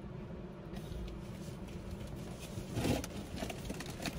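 Steady low rumble with a brief rustle and a few light clicks about three seconds in.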